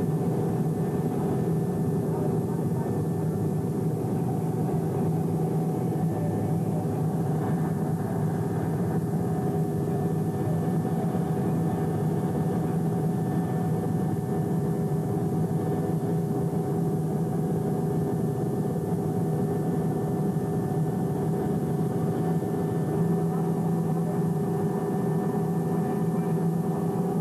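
Steady, unchanging heavy engine drone over a noisy rush, with several held tones and no rise or fall.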